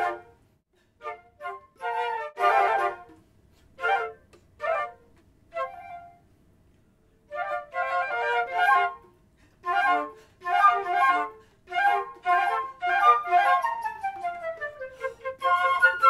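Flute quartet playing short, crisp staccato chords broken by rests, with a full stop of over a second in the middle. It then picks up into busier, fast repeated figures, and near the end one flute repeats a low note under a falling line.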